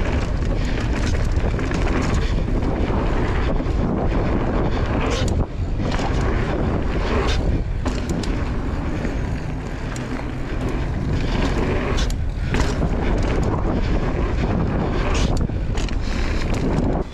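Wind buffeting the microphone of a mountain biker's camera while riding, over a steady low rumble, with scattered short clicks and knocks. The noise drops briefly twice, about five and twelve seconds in.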